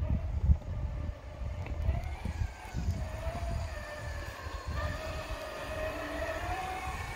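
Traxxas X-Maxx 8S RC truck's brushless electric motor whining as the truck drives and pushes snow with a plow blade. The pitch wavers, rising briefly near the end.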